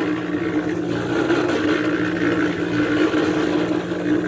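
Harbor Freight electric cement mixer running steadily, its motor giving a constant hum as the drum turns with concrete inside.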